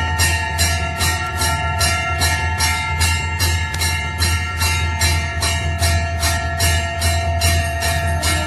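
Temple bell rung rapidly and evenly during aarti, about three strikes a second, its ringing tones carrying over between strikes, with a steady low hum beneath.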